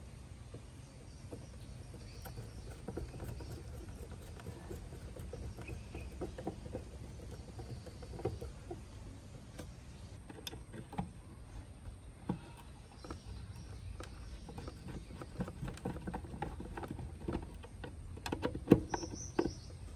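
Screwdriver working the screws of a car amplifier's wire terminal blocks: small metal clicks and scrapes over a low background rumble, with a louder cluster of clicks near the end.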